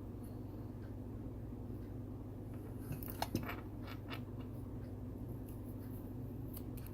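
A few light metallic clicks from a Mako 427 lock as its core is pushed out and the parts are handled, over a steady low hum.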